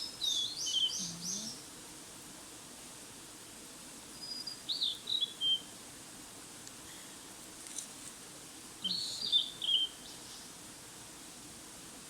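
A songbird singing three short phrases, each a quick run of descending notes, a few seconds apart, over a faint steady hiss.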